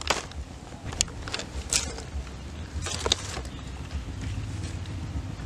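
Cleaned wet fish being handled and laid onto banana leaves in a basket. A few sharp slaps and leaf crackles, the loudest in the first two seconds, sound over a steady low rumble.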